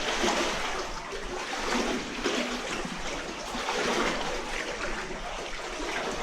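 Water splashing and trickling.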